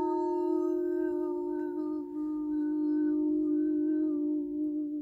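A singing bowl ringing on after a strike: a sustained low tone with several overtones and a slow pulsing wobble.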